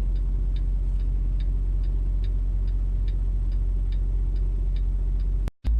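Turn-signal indicator clicking evenly, about two and a half clicks a second, over the steady low drone of a vehicle's engine and road noise inside the cab. The sound drops out for an instant near the end.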